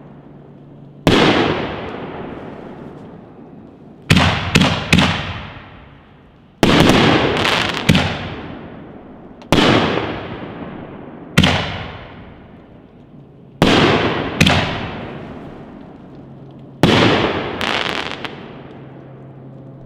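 Consumer canister shell fireworks firing and bursting: about a dozen sharp bangs, each trailing off in a long echo, some coming in quick pairs and triples.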